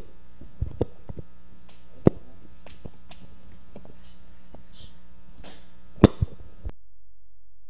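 Handheld microphone being handled: sharp knocks and thumps over a steady electrical hum, the loudest knock about six seconds in. Shortly after that, everything but a low hum cuts out suddenly.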